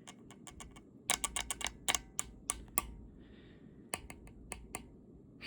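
Irregular run of small, sharp clicks and taps from hands handling guitar hardware and a small screwdriver, coming thickest about a second in and again near four seconds.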